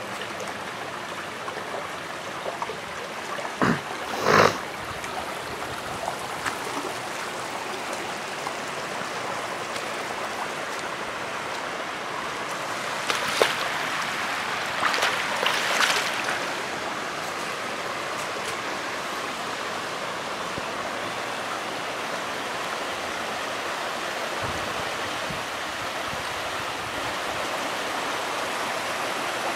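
Floodwater from a broken water main running across a lawn in a steady rush, with a few sharp knocks about four seconds in and again a few times around the middle.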